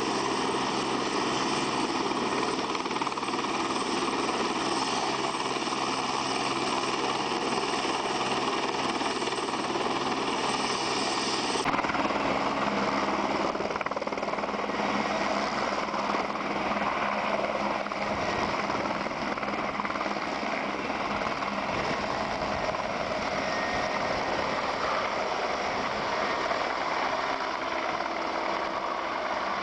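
Turbine helicopter running with its main rotor turning, first as a steady whine, then lifting off and flying away with a deep, rhythmic rotor beat under the engine. The sound changes suddenly about twelve seconds in.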